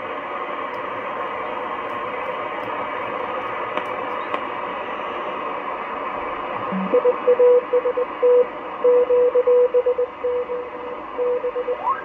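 Shortwave amateur radio receiver on the 20 m band putting out steady band hiss. About seven seconds in, a Morse code (CW) signal comes through as a single steady tone keyed on and off. A short rising whistle of tuning comes just before it and again at the end.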